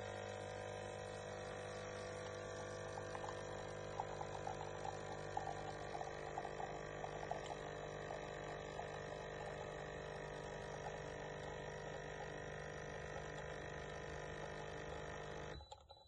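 HiBREW 5-in-1 capsule coffee machine's 19-bar pump humming steadily as it brews espresso into a mug, with light crackling of the coffee stream spurting between about three and eight seconds in. The pump cuts off just before the end.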